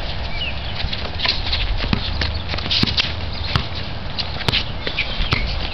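Basketball bouncing on a concrete court amid players' sneaker footsteps: irregular sharp thuds a second or less apart over a low rumble.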